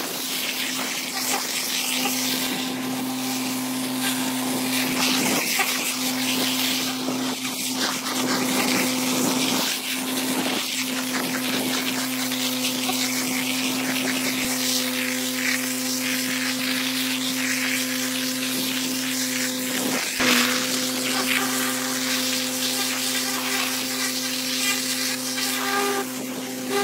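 Vacuum excavator sucking soil and stones up a wide suction hose: a steady rushing hiss over a constant low hum from the machine, with grit crackling as it goes up the hose.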